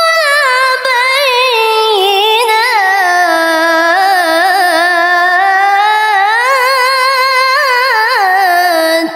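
A young woman's voice in melodic Quran recitation (tilawah): one long phrase drawn out on a single breath, its pitch winding through rapid ornamental turns and trills. It stops right at the end.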